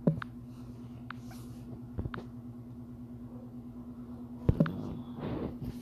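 Finger taps and handling clicks on a smartphone, picked up by its own microphone while its screen is being navigated: a few faint sharp clicks, a louder pair of knocks about four and a half seconds in, and a brief rustle near the end, over a steady low electrical hum.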